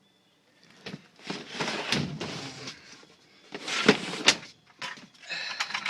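Parts and bins being handled in a work truck's storage shelving: a spell of rattling and rustling, two sharp knocks about four seconds in, then more clattering and scraping near the end.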